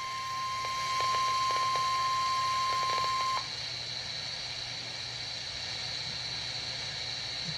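NOAA Weather Radio's 1050 Hz warning alarm tone, one steady high tone sounded as a weekly test, cutting off about three and a half seconds in. Steady radio hiss and static remain after it.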